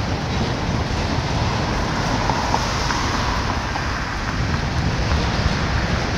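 Autorack freight cars rolling past with a steady rumble of steel wheels on rail, and a car driving past partway through.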